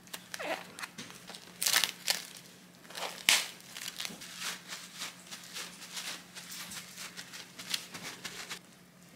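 Plastic cling wrap crinkling and crackling as it is peeled off a foam meat tray of raw beef, the loudest crackles in the first few seconds. Smaller crackles follow as a paper towel is pressed onto the meat, stopping shortly before the end.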